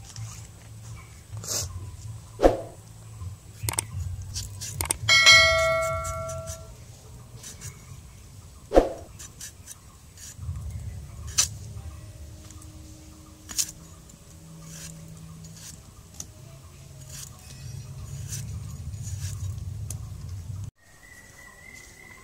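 Vegetables being peeled and cut against a boti blade: scattered knocks and scrapes over a low rumble. About five seconds in, a loud bell-like ring dies away over a second or so.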